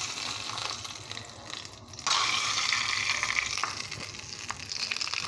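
Hot mustard oil sizzling and trickling as it is poured from its bowl through a strainer. The hiss dips briefly just before two seconds in, then comes back louder.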